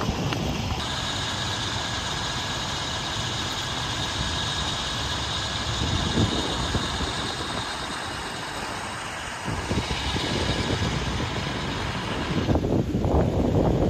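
A steady engine drone with a high whine sets in about a second in and cuts off about a second before the end. Throughout, wind buffets the microphone, and it grows louder once the drone stops.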